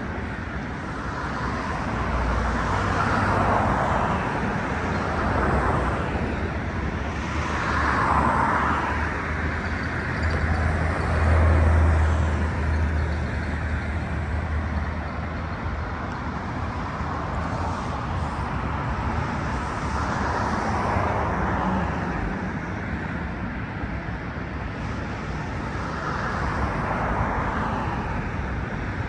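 Steady road traffic from a freeway beyond a sound wall, with vehicles swelling past every few seconds. A low drone rises and is loudest about eleven seconds in.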